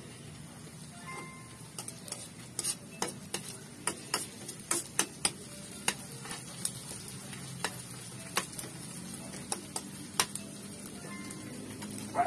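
Metal slotted spoon scraping and clicking against a wok while ginger and onion sauté in hot oil, with a steady sizzle underneath. The clicks come irregularly from about two seconds in, several a second at times, and thin out near the end.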